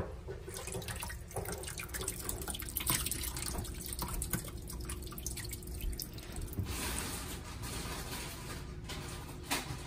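Whey and soft milk curds pouring and splashing from a stainless steel pot into a metal colander in a stainless sink, with a patter of drips as the curds are strained. A steadier rush of liquid runs for a few seconds starting a little under seven seconds in.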